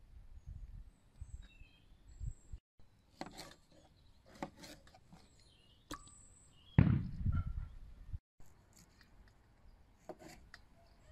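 Small kitchen knife cutting tomatoes on a cutting board, with scattered clicks and knocks as the pieces are handled. Birds chirp faintly, and a loud low thump comes about seven seconds in.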